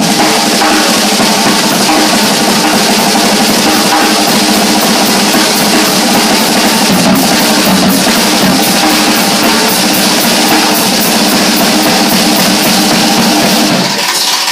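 Jazz drum kit played busily in a live swing number, with rapid snare and cymbal strokes and bass drum under a sustained band backing.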